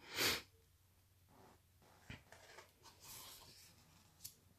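The page of a hardcover picture book being turned: soft paper swishes and rustles, with a couple of light taps.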